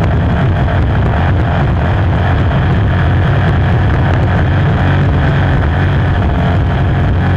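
The inboard V8 engine of a 5.0-litre class racing hydroplane running steadily under way, heard loud from the cockpit, with no change in pitch.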